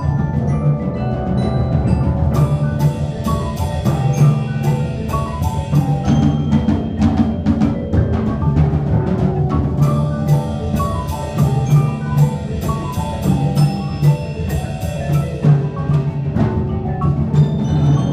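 Percussion ensemble playing, led by marimbas struck with mallets in quick, even notes over a steady low part.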